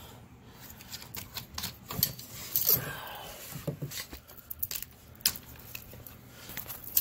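Irregular clicks and knocks of a Manfrotto 545GB tripod's legs and ground-level spreader being handled and spread low, with a few sharper knocks among lighter clicking.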